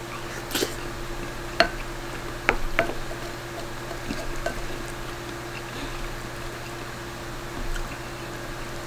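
Eating sounds: wet chewing of a soft egg-and-rice dish, with a few light clicks from a wooden spoon on the bowl in the first three seconds, over a steady low hum.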